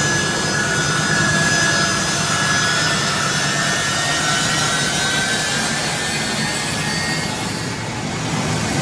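Jet aircraft engines running loud and steady: a dense rush of noise with thin whining tones over it.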